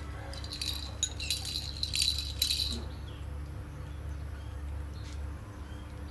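Plastic toy rattle balls shaken and jostled by a baby monkey: a quick, jingly rattling that lasts about two and a half seconds and is loudest around the two-second mark.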